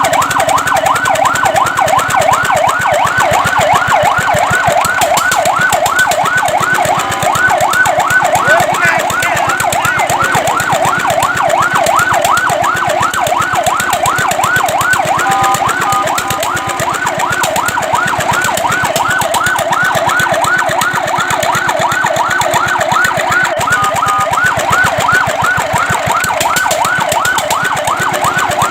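Fire truck siren in a fast yelp, its pitch rising and falling about four times a second, with brief steady two-note tones breaking in about halfway through and again near the end.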